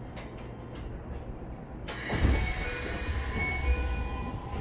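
Passenger doors of a Keisei 3100-series train sliding open at a station stop: a few light clicks, then about two seconds in a sudden rush of noise as the doors open, over the low rumble of the stopped train.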